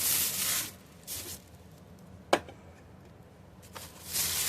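Purchases being handled: bursts of rustling noise, a single sharp click a little over two seconds in, then more rustling near the end.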